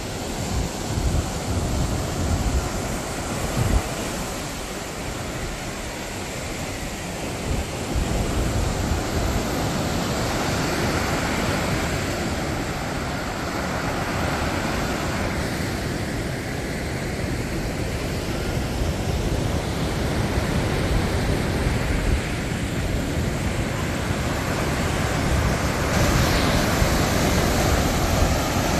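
Sea surf breaking and washing up a sandy beach in a steady rush, growing a little louder near the end, with wind buffeting the microphone in low rumbles.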